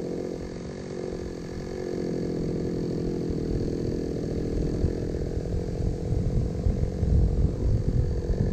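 Small engine running steadily, its low hum turning uneven and pulsing over the last few seconds.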